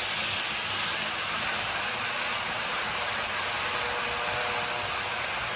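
N-gauge model trains rolling past on the layout's track, first a 475-series set and then a Thunderbird set: a steady hiss of small wheels and motors on the rails. A faint thin whine joins in from about four seconds in.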